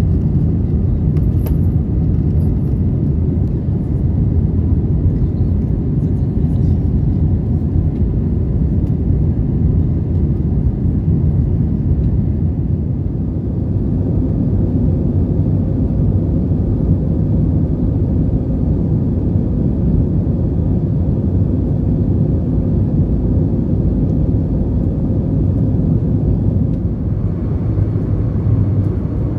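Airbus A321 cabin noise in flight: a steady low rumble of engines and rushing air heard from a seat over the wing. Near the end it brightens a little and a faint high whine joins it.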